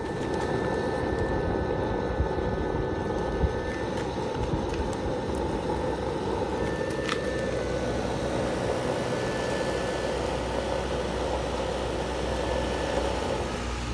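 Fan-forced rocket stove burning hard: a small 12-volt fan blows air into the steel feed tube, making a steady rushing fire noise with faint steady whining tones from the fan and a few small ticks.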